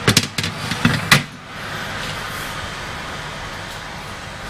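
Metal baking tray clacking and knocking as it is pushed onto an oven rack, several sharp clacks in the first second or so, then a steady rushing noise.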